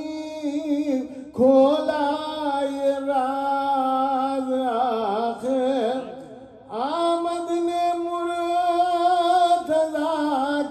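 A man singing an Urdu devotional poem (manqabat) in praise of Ali, drawing the words out into two long, ornamented held notes with a short breath about six and a half seconds in.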